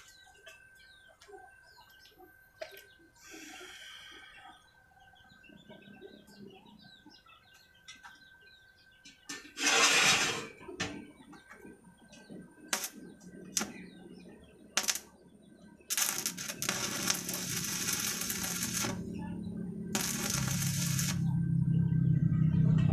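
Electric arc welding on a steel bar: a brief loud crackling hiss of the arc about ten seconds in, a few sharp clicks, then two longer runs of crackling hiss over a low steady hum that grows louder near the end. Faint bird chirps can be heard during the quiet first part.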